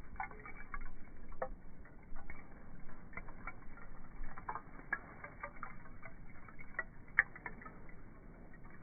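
Small wood fire crackling: irregular snaps and pops, with one sharper pop about seven seconds in.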